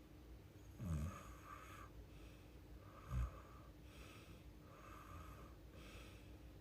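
A sleeping woman snoring: two short snorts, about a second in and just after three seconds, with softer breathing in and out between them.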